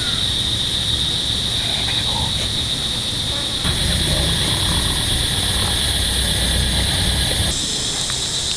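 Steady outdoor ambience: a continuous high insect buzz, with a low rumble of wind on the microphone underneath. A second, higher-pitched buzz comes in about four seconds in and stops about a second before the end.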